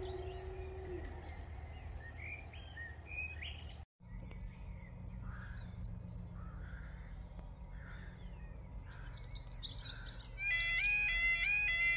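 Birds chirping over a low background rumble. Near the end a level-crossing warning alarm starts: a loud, stepped two-tone yodel that repeats about twice a second, signalling that the crossing is about to close for a train.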